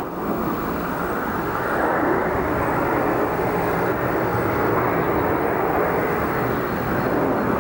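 Jet noise from an Antonov An-158's two Progress D-436-148 turbofans as the airliner flies past in a banking turn. It is a steady rush that grows louder about two seconds in and then holds.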